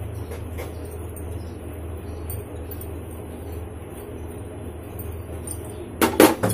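A steady low hum runs throughout. About six seconds in, metal kitchenware clatters loudly for about half a second.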